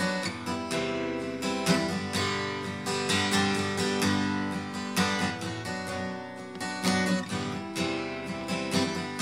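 Instrumental passage of a song with an acoustic guitar strummed in a steady rhythm and no singing.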